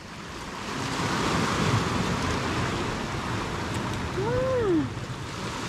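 Sea surf washing on the beach, a steady rush of breaking waves that swells about a second in. About four seconds in, a person gives one short call that rises and then falls in pitch.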